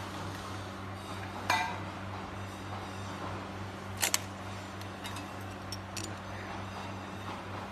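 Metal parts of a standing coat rack clinking as the hook arms are handled and fitted to the pole: one ringing clink about a second and a half in, two sharp clicks close together around four seconds, then a few lighter ticks, over a steady low hum.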